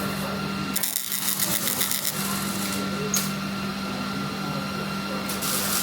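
Steady machine hum with a thin high tone, and a burst of rapid, even clicking from about one to two seconds in.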